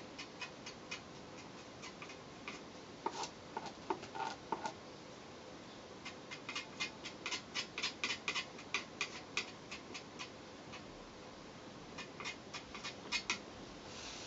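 Light, irregular ticks and clicks of a small applicator stick tapping and scraping on a composite pole section as glue is spread over its worn top. They come in clusters: a few at the start, a bunch around three to five seconds in, a dense run in the middle, and another cluster near the end.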